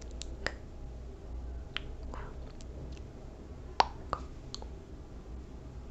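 Close-miked ASMR sounds: a scattering of soft clicks and smacks, about eight in all and irregularly spaced, the sharpest one about four seconds in, over a low steady hum.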